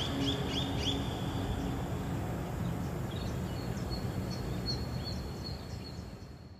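Outdoor ambience: a steady rushing noise with small birds chirping in quick, falling notes, joined in the second half by a thin, high, steady tone. It all fades out at the end.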